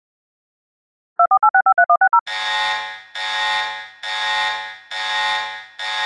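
Emergency alert attention signal, after about a second of silence: a quick run of short beeps alternating between two pitches, then long buzzing alarm tones repeating about once a second, five in all.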